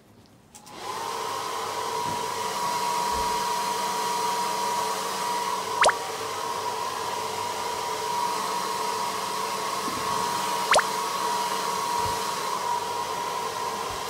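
Hair dryer switched on just under a second in and running steadily: a constant rush of air with a steady motor whine. Two brief sharp pops sound over it, about five seconds apart.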